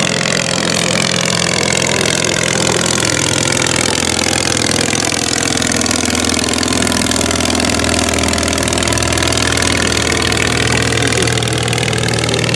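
The English Electric Wren's small ABC flat-twin engine running steadily.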